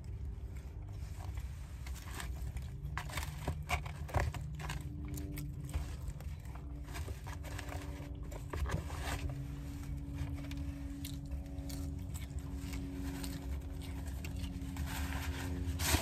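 Close-up chewing of a mouthful of loaded fries: small wet clicks and crackles of the mouth, mostly in the first half, over a steady low hum.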